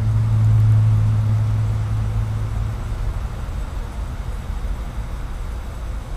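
A motor's low steady hum, fading out about three seconds in and leaving a low rumble.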